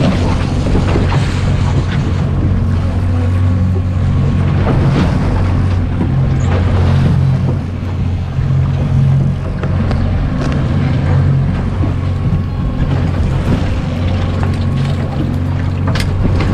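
Boat's motor running steadily, with wind and water noise around it.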